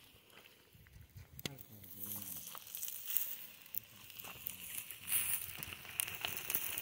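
Plastic wrapping crinkling as a plate of fish is handled, over the light crackle of an open wood-coal fire where tortillas and fish are cooking on the embers. The rustling starts about two seconds in and grows louder.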